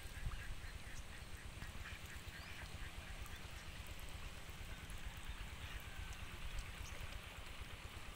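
A flock of domestic ducks quacking, with a quick run of calls in the first couple of seconds and scattered calls after, over a steady low rumble.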